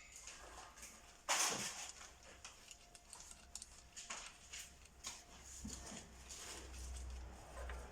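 Metal parts of a paintless-dent-repair tool pipe being handled and taken apart: small clicks, knocks and rubbing, with one louder scraping slide about a second in.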